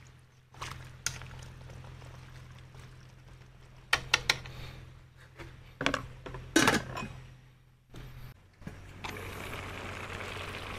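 Chopsticks and an aluminium pot lid knocking and clattering against a large aluminium stew pot, a few scattered clinks and then a louder metal clatter about two-thirds in. Near the end the pot of goat offal stew simmers with a steady hiss.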